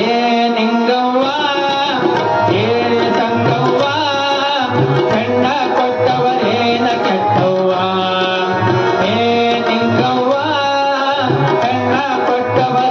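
Man singing a Kannada folk song (janapada geete) to harmonium, with tabla keeping a steady beat underneath.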